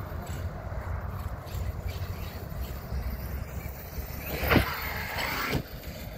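Arrma Kraton 8S RC truck's brushless motor whining sharply up in pitch as it goes to full throttle, holding a high whine for about a second before cutting off suddenly. Low wind rumble on the microphone throughout.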